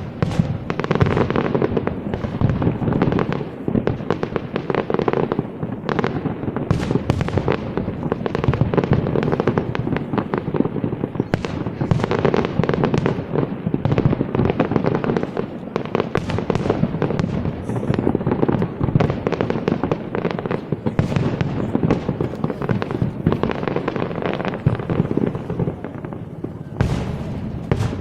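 Fireworks display going off in a dense, continuous barrage of rapid bangs and crackles, beginning abruptly.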